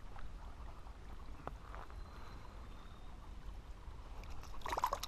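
Shallow stream running steadily, with a short burst of splashing near the end as a small trout held in the water is let go.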